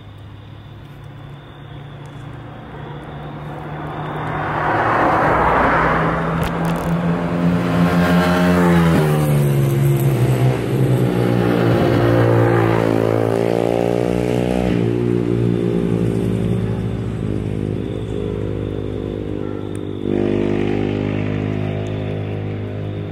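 A motor vehicle's engine going by: it grows louder over the first few seconds, its pitch drops about nine seconds in, it runs loud for several seconds, fades, then swells again near the end.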